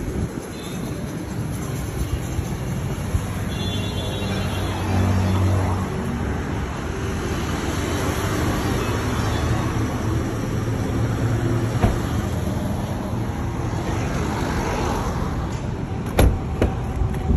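Road traffic, motor-vehicle engines running and passing, steady throughout and a little louder about five seconds in. A few sharp knocks near the end.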